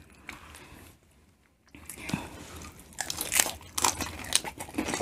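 Two people biting into and chewing whole shell-on shrimp coated in seafood boil sauce: a quick run of sharp, wet clicks that starts about two seconds in.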